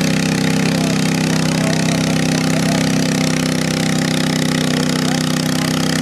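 Stock Cub Cadet garden tractor engine running steadily under load as it pulls a sled, its pitch holding even with no revving.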